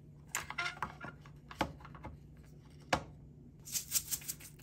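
Bowls being set down on a wooden tray: a few separate light knocks, then a quick cluster of clicks and clatter near the end, over a faint steady hum.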